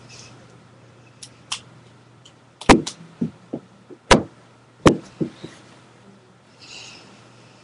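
A few irregular knocks: three sharp thumps in the middle, each followed by a couple of lighter taps, over a steady low hum.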